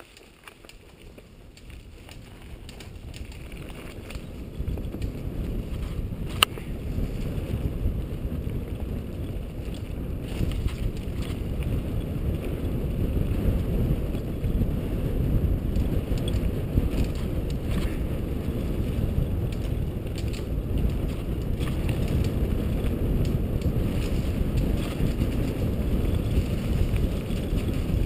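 Mountain bike riding down a leaf-covered dirt singletrack: tyre and trail rumble mixed with wind buffeting the camera microphone. It builds over the first few seconds as speed picks up, then holds steady. There is one sharp click about six seconds in.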